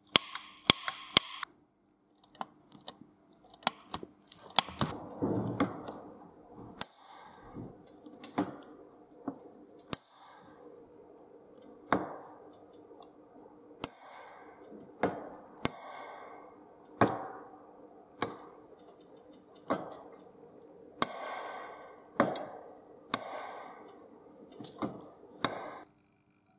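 Spot-welding dent puller working on a dented sheet-steel oiler can: sharp metallic snaps every second or two, each followed by brief ringing of the can, as the tip is welded on and pulled. A steady hum runs underneath.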